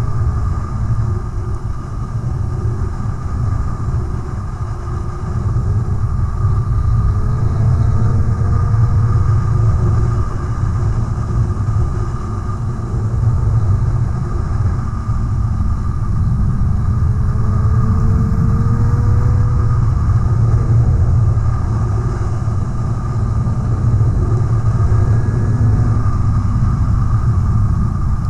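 Motorcycle being ridden, heard from the bike itself: a steady low rumble of engine and wind, with the engine pitch rising slowly a couple of times.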